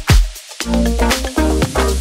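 Background music: upbeat electronic dance track with a steady beat and deep bass.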